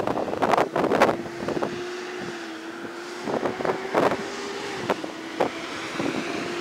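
Irregular knocks and rattles from a camera rig rolling fast over a bumpy concrete sidewalk, with wind buffeting the microphone and a steady hum underneath.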